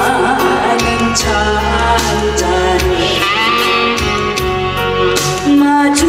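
A woman singing a Korean popular song into a microphone over amplified backing music with bass and a steady beat.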